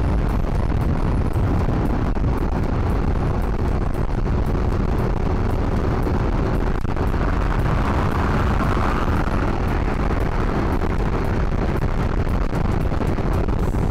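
Loud, steady wind noise rumbling on an AKASO V50x action camera's external microphone while riding a motorcycle at speed; the mic is picking up strong wind noise.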